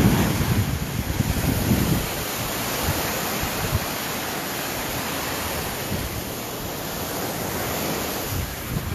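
Ocean surf washing steadily on a beach, with wind buffeting the microphone in low rumbling gusts during the first two seconds.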